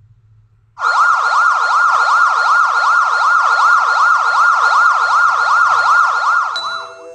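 Siren in a fast yelp, its pitch sweeping up and down about three times a second. It starts about a second in and stops near the end.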